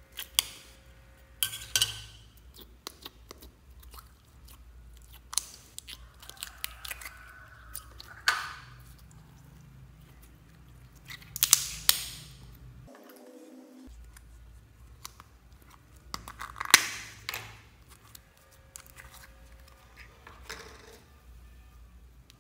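Hands squishing, poking and stretching slime: a series of separate crackly, popping squelches, about seven in all, the loudest a little before halfway and about three quarters through.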